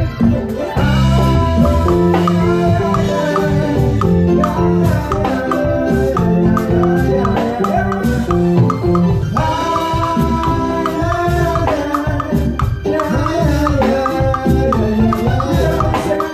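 Live band playing salsa-style Latin music, with conga and bongo sounds struck with sticks on a Roland SPD-20 electronic percussion pad along with bass and keyboard.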